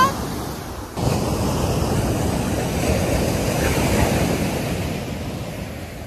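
Ocean surf breaking and washing up the sand, with wind on the microphone, easing off near the end.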